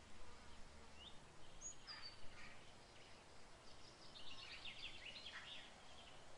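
Faint birdsong: a few short high chirps, then a rapid chattering trill about four seconds in.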